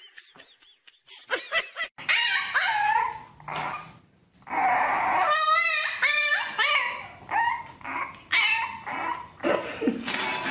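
French bulldog puppy whining and yipping: a run of high, wavering cries starting about two seconds in, one of them a quavering warble.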